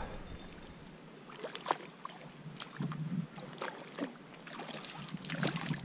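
A hooked trout splashing and thrashing at the surface in shallow water as it is reeled in on a fishing rod: a scatter of short, faint splashes.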